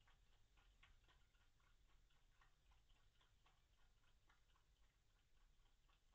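Very faint, irregular clicking of foxes chewing food, several clicks a second, heard close to near silence.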